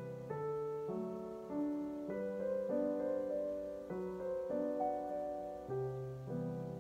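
Background piano music: a simple melody over held chords, the notes changing about twice a second.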